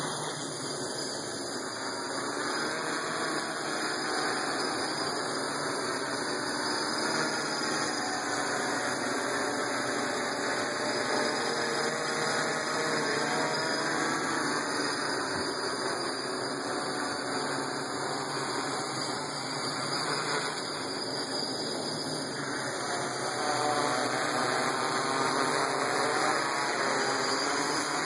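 A hexacopter's electric motors and propellers buzz steadily in flight, their pitch wavering up and down.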